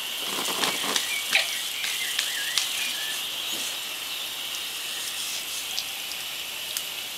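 Steady hiss of water spraying from a garden sprinkler and falling as fine drops, with a few faint ticks and a brief chirp in the first couple of seconds.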